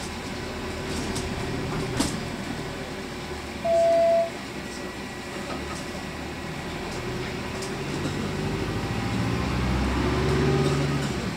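Cabin noise inside a Volvo 7900A hybrid city bus: a steady rumble with a sharp click about two seconds in, then a loud, single, short beep about four seconds in. In the second half the drivetrain's low hum grows louder and rises slightly in pitch.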